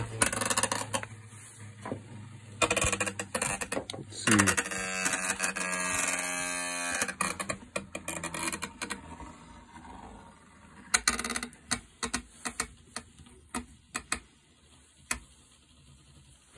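Wooden spinning top, launched from a pull-string handle, spinning on the floor of a cardboard box: a whirring that slides down in pitch over a couple of seconds, then scattered taps and rattles as it skids and knocks about. The cardboard robs it of its spin quickly.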